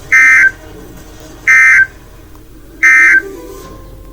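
Emergency Alert System end-of-message signal: three short, loud, buzzy bursts of SAME digital data tones, about 1.3 s apart, marking the end of the alert broadcast.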